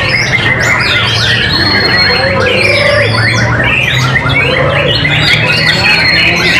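White-rumped shamas singing over one another, a dense run of fast, varied whistled phrases. A steady low hum lies underneath.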